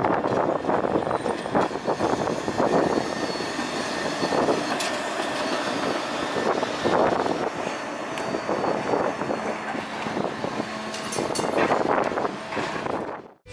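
SEPTA Kawasaki light-rail trolley running past on street track, a continuous rumble of wheels on rail mixed with street traffic, with a faint steady high whine throughout. The sound cuts off abruptly near the end.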